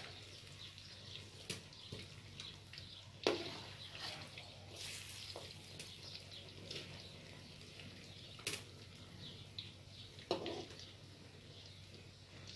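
Kababs deep-frying in hot oil in a karahi: a steady crackling sizzle, with several sharp knocks of a metal ladle against the pan as they are turned.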